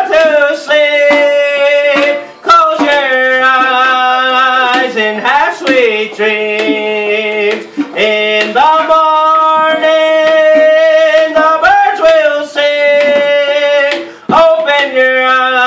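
A man singing a hand-drum song in a strong, high voice with long held, wavering notes, beating a handheld frame drum with a stick in a steady beat. The voice breaks off briefly about two seconds in and again near the end.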